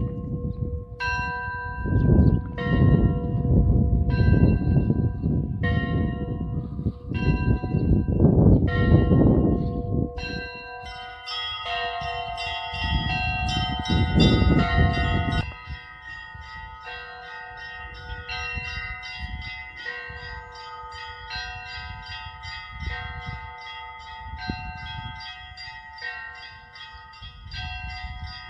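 Orthodox church bells ringing. First come single strokes about once a second, then from about a third of the way in a fast, continuous peal on several bells at once. A loud low rumble runs under the first half and drops away about halfway through.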